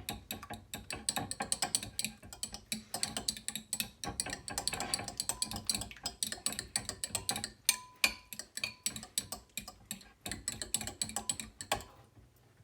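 Raw eggs being beaten in a bowl: a utensil clicking rapidly and steadily against the bowl's side, pausing briefly near the end.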